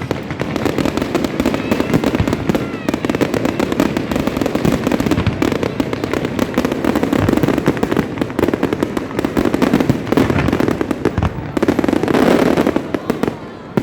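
Fireworks display: a continuous barrage of bursts and crackling, loud throughout, growing denser just before the end and then easing off.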